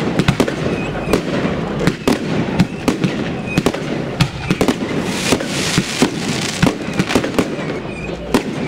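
Fireworks going off: a dense, irregular string of sharp bangs and pops from aerial bursts and rising rockets, several a second, with a rushing hiss about five seconds in.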